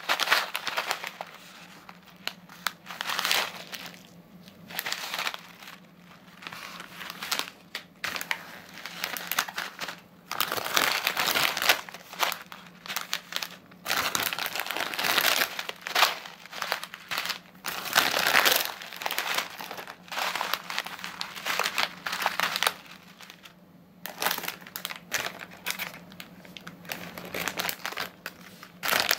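Plastic snack packets of crunchy noodle snack crinkling as hands pick them up, shuffle and lay them down, in irregular bursts with short pauses between.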